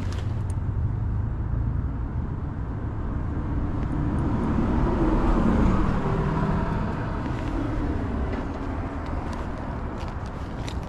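Road traffic outdoors: a vehicle passing by, its noise swelling to a peak about midway and fading away, over a steady low rumble.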